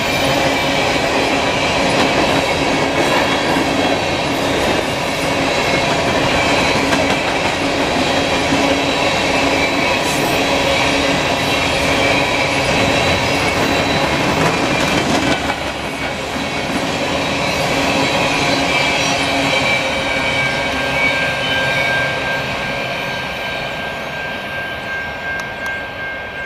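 A freight train of steel open-top aggregate hopper cars rolling past close by: a steady wheel-on-rail rumble and clickety-clack, with high steady wheel squeal tones. It fades over the last few seconds as the end of the train goes by.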